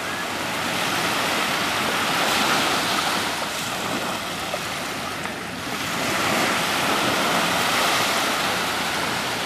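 Small waves breaking and washing up on a fine pebble beach. The surf swells twice, with a lull about halfway through.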